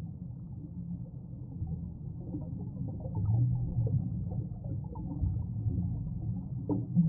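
Muffled underwater sound picked up inside a camera housing: a steady low rumble with the gurgling and crackle of scuba divers' exhaled air bubbles, swelling about three seconds in and again near the end.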